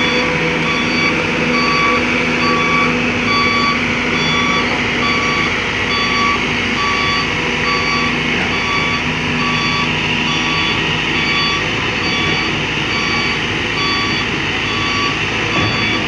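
Kobelco excavator running with its diesel engine humming steadily while its warning alarm beeps over and over at an even pace.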